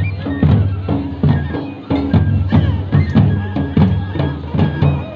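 Traditional folk music for a dance: drums beating a steady, quick rhythm under a high reed or pipe melody holding long notes.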